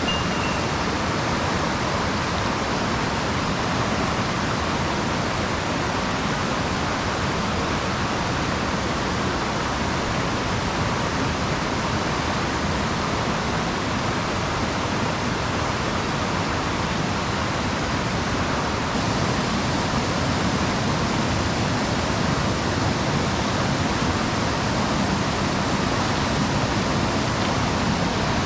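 Mountain stream rushing over rocks: a steady, fairly loud wash of water with no break.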